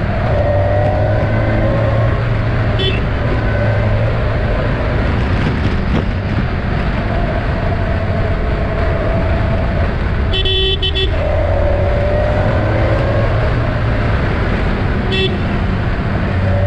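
Kawasaki Versys 1000's inline-four engine running steadily under way, with wind noise, on the move. A vehicle horn sounds three times: a short toot about three seconds in, a longer honk of nearly a second about ten seconds in, and another short toot near the end.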